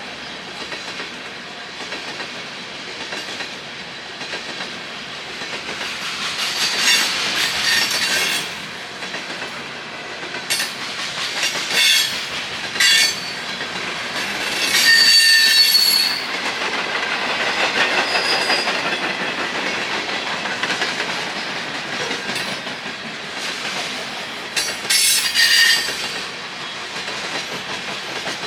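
A train rolling past: railroad cars' wheels clacking over the rail joints with short, high wheel squeals, the loudest about halfway through and again near the end.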